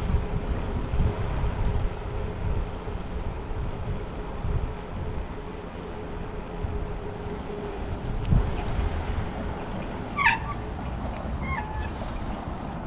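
Street noise heard from a moving bicycle: a constant low rumble of traffic and wind buffeting the microphone, with a faint steady hum for the first part. About ten seconds in comes a short high chirp, followed by a brief squiggle of sound.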